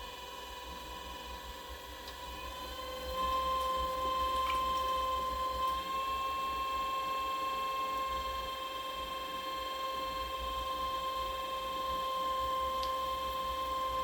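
Electric pottery wheel motor running with a steady whine, which rises a little in pitch and gets louder about three seconds in as the wheel speeds up, then holds steady.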